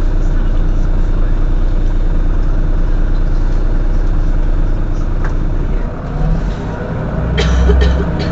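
Heuliez GX 127 bus's diesel engine idling with a steady low throb. About six seconds in the note changes to a deeper, louder hum that swells near the end, with a few sharp clicks.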